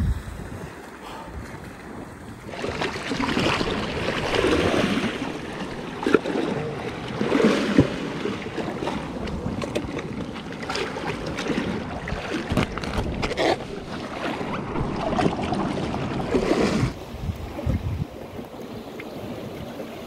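Sea water splashing and washing over rocks as a very large fish is handled and dragged at the water's edge. Wind rumbles on the microphone, with a few sharp knocks.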